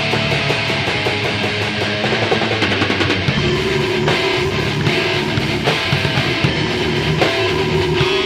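Heavy metal song: distorted electric guitars and a drum kit playing continuously, with a long held note coming in about three and a half seconds in and again near the end.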